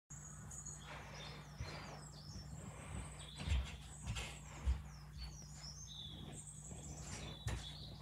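Small birds chirping and whistling from a bird video playing on a television, many short high calls, some gliding down in pitch, over a steady low hum. A couple of dull low thumps near the middle.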